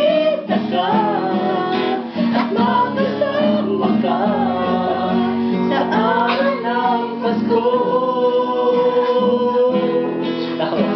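A woman singing a slow ballad in Tagalog to her own acoustic guitar strumming. Near the end she holds one long note.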